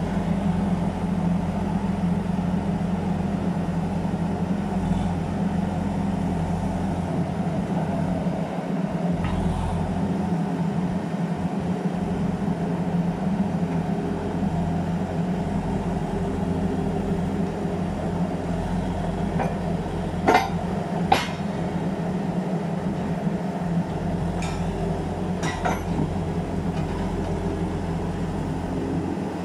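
Kaiser S2-4 walking excavator's diesel engine running steadily while its hydraulics lower one of its legs onto a foot pad. Two sharp knocks about a second apart come a little after twenty seconds in, with fainter ones a few seconds later.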